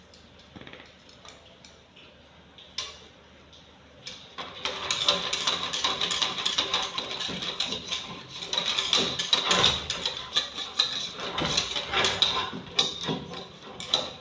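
Thin flour-and-water batter being stirred briskly in a mixing bowl. About four seconds in, the utensil starts beating against the bowl in a fast, steady run of clicks and scrapes.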